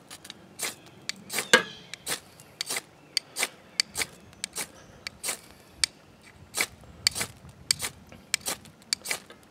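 Ferro rod scraped again and again with a steel striker, short sharp rasps about twice a second, throwing sparks onto charwood.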